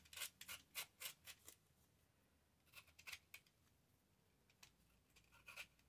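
Faint, quick scratchy strokes on paper in three short runs, a few strokes a second, as the paper is being distressed to give it a grunged look.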